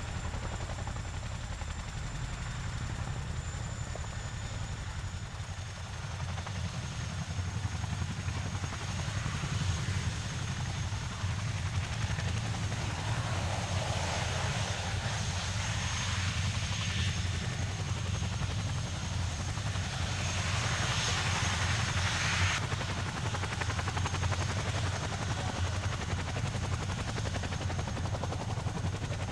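CH-47 Chinook tandem-rotor helicopter hovering low, settling onto the ground and running there with its rotors turning: a steady low rumble with a steady high whine on top, the whine stepping down slightly about five seconds in. A rushing noise swells from about thirteen seconds in and cuts off abruptly about twenty-two seconds in.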